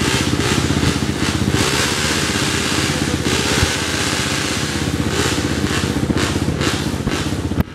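Off-road motorcycle engine revving hard, its pitch rising and falling, while the bike is bogged down in deep mud. The sound breaks off abruptly at the very end.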